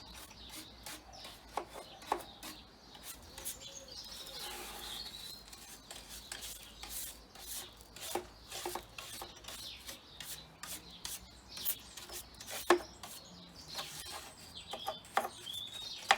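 Brush scrubbing and scraping bird droppings off a bird feeder in quick, irregular strokes, with a sharp knock about three quarters of the way through. Small birds chirp a few times.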